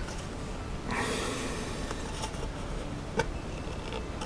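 Workbench handling sounds as a carbon-fibre RC car chassis plate is picked up and turned over: a light click, a brief rustle about a second in, and another light click near the end.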